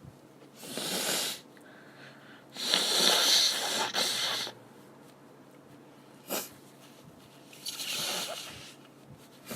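A woman blowing her nose: three rough, hissing blows, the second the longest and loudest, with a short click between the last two.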